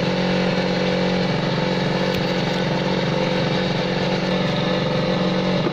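An engine aboard a fishing boat running steadily at an even speed, a constant drone.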